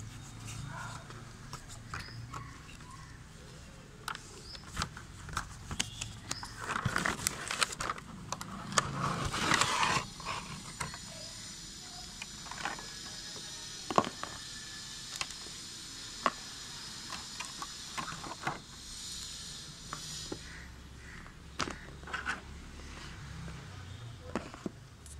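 Clear plastic packaging and cardboard box being handled as headphones are pulled out. Crackling, scraping and scattered clicks are heaviest several seconds in. A faint steady high hiss runs through the middle stretch.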